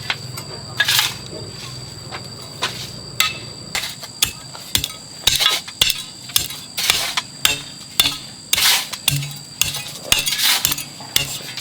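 Irregular sharp knocks and taps of hand tools working bamboo and wood, a few strikes a second at uneven spacing. A steady high-pitched tone runs underneath.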